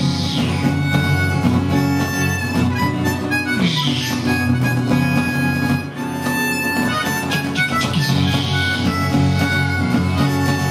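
Harmonica playing a solo line over strummed acoustic guitar, an instrumental break in the song.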